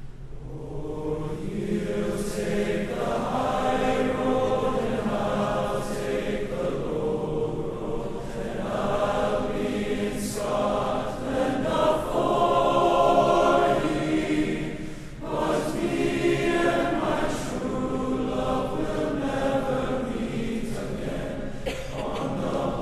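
A high school choir singing in long held phrases, with short breaks between them.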